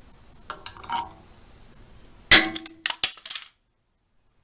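Pops-A-Dent glue-pull tool working on a Suzuki SV650's steel fuel tank: a few light plastic clicks as the bridge is tightened, then the hot-glued pull tab lets go of the tank with one sharp clang and a brief ring, followed by a quick rattle of clicks. The sound then cuts out to silence.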